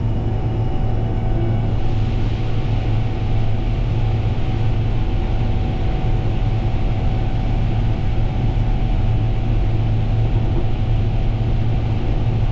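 Steady low drone of a harvest machine's engine running, with a faint steady whine above it; a hiss of machinery noise swells about two seconds in and holds.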